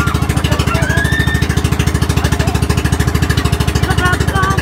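Small boat engine running steadily with a fast, even thumping.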